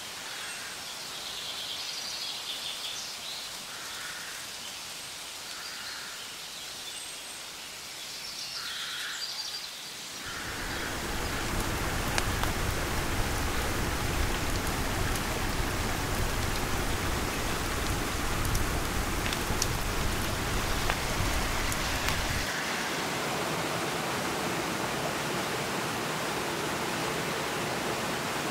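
Forest ambience: short animal calls repeating about every two seconds over a faint hiss, then, about ten seconds in, the steady rush of a rocky stream comes in loudly and covers them.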